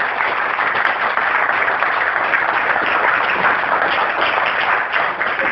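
An audience applauding steadily, loud and continuous.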